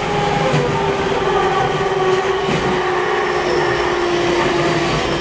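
JR East Series E721-500 train running, its Mitsubishi IGBT-VVVF traction inverter and motors giving a steady whine that falls slowly in pitch as the train slows, over the rolling noise of wheels on rail.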